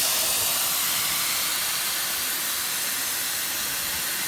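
Compressed air rushing out of a Mercedes Sprinter van's tire through an Apex rapid-deflate valve stem, airing the tire down for off-roading: a loud, steady hiss that eases slightly.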